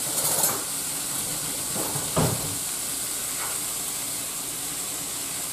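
Ground beef, black bean and corn mixture sizzling steadily in a skillet, with a few short knocks of a utensil on the cookware in the first couple of seconds as rice is added.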